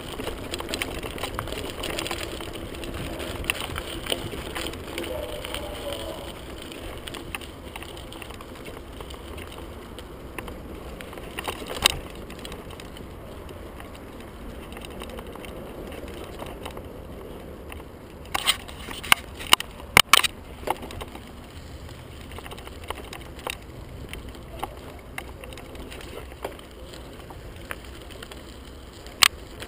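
Merida Matts TFS 800D mountain bike rolling over a gravel and dirt trail, with a steady rumble of tyres on loose ground. The bike rattles and clacks sharply over bumps about twelve seconds in, in a cluster of several knocks about two-thirds of the way through, and once more near the end.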